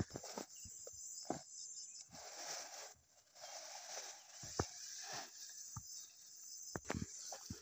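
Rustling of leafy undergrowth and footsteps in rubber boots as a person pushes through a cassava patch, with scattered short snaps and knocks of stems.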